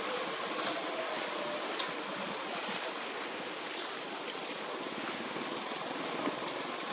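Steady outdoor background hiss with a few faint ticks scattered through it.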